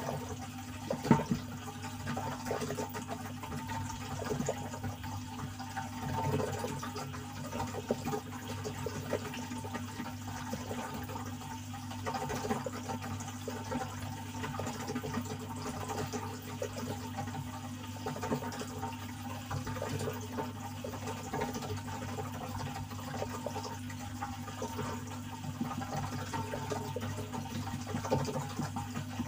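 Aquarium water moving and trickling, over a steady low hum, with small irregular clicks scattered through.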